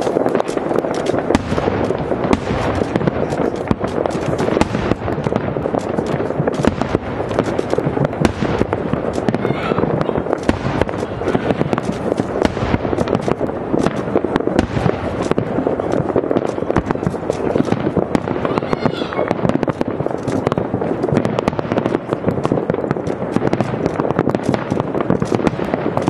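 Aerial fireworks display: a dense, unbroken barrage of sharp shell bursts, many bangs a second at a steady loudness.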